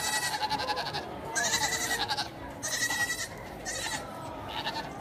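Goat bleating: four or five quavering bleats one after another.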